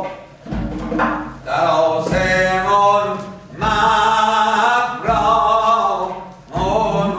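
Zurkhaneh morshed's chanting: a male voice sings verse in long, wavering phrases that break every second or two. Deep strokes of the zarb goblet drum come in at the start of several phrases.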